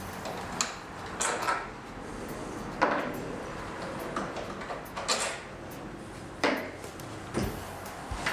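Lawn mower's folding handle and its bolts being handled, giving about six short knocks and rattles at irregular intervals.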